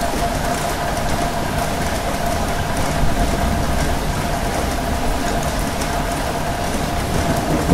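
Steady rain pattering on the windows of a moving rail carriage, over the carriage's low running rumble and a steady hum.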